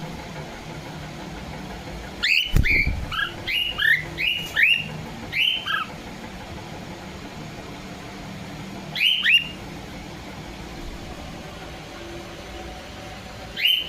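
Cockatiel calling: a quick run of about eight short chirps, each sliding in pitch, then two more single calls, one midway and one near the end.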